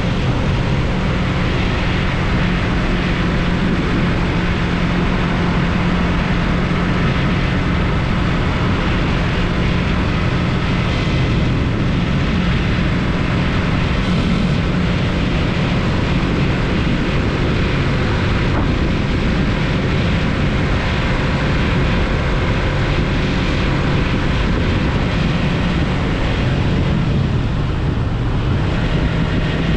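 Yamaha MT-03 motorcycle engine running steadily at an even pitch while riding, under a constant rush of wind and road noise.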